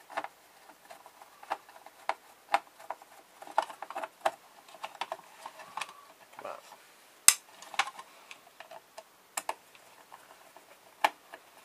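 Irregular small clicks and clinks of a hair straightener's metal housings and hinge parts being pried and worked apart by hand. The loudest is a sharp click about seven seconds in.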